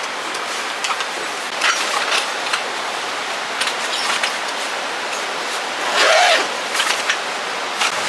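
Steady rain falling, an even hiss of water noise, with a few sharper drops tapping now and then, the loudest about six seconds in.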